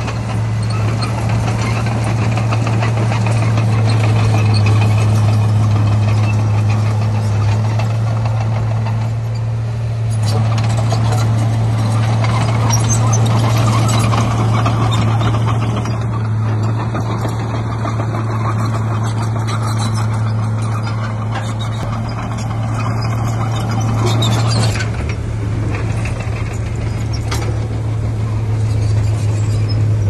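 Heavy earthmoving machinery's diesel engine running steadily with a constant low hum, its mechanical noise swelling in the middle and easing back near the end.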